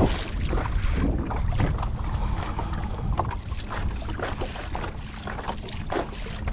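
Wind buffeting the microphone, with water slapping and splashing irregularly against the hull of a Hobie Lynx kayak as it moves through a wind chop.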